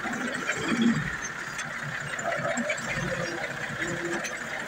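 Farm tractor's diesel engine running at idle, a steady mechanical hum.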